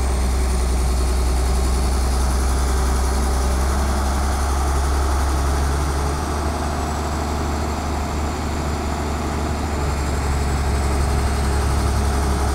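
A Kobelco hydraulic excavator's diesel engine running steadily at close range: a strong low drone that sags slightly midway, with a thin high whine drifting slowly in pitch above it.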